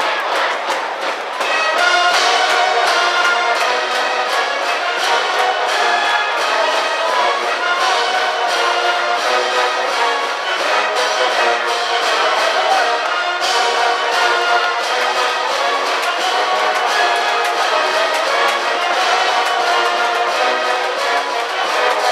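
High-school brass band playing a baseball cheering tune, the brass carrying the melody over a steady beat. The full band comes in about two seconds in after a brief lull.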